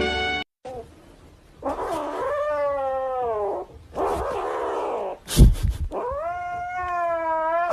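Cat yowling: three long, drawn-out caterwauling calls that fall in pitch, with a loud bump about two-thirds of the way through. A brief moment of music cuts off just at the start.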